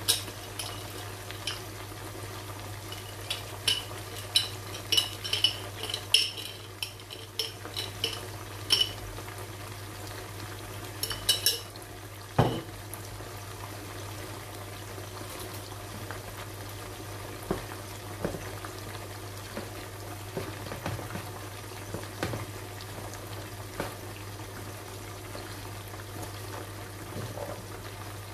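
A spoon clinking and scraping against a jar of mayonnaise, a quick run of sharp clinks over the first twelve seconds with a single knock just after. Then the softer sounds of stirring mayonnaise through pasta in a bowl, over a steady low hum and faint frying from a pan.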